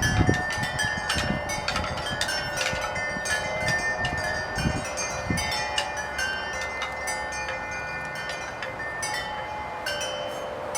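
Wind chimes ringing irregularly, many overlapping struck tones at different pitches, with a few dull low thumps near the start and around the middle.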